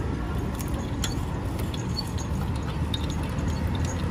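Hand-cranked steel roller press flattening a dried squid, its gears and rollers giving irregular light clicks and ticks as the crank turns, over a low steady rumble of road traffic.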